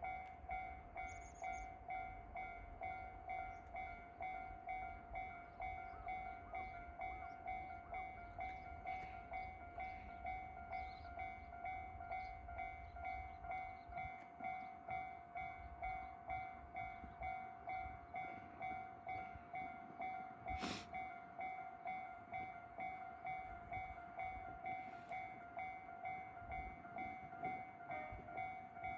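Japanese level-crossing warning bell ringing: an electronic ding repeating at an even rhythm, steady throughout. A single sharp click comes about two-thirds of the way through.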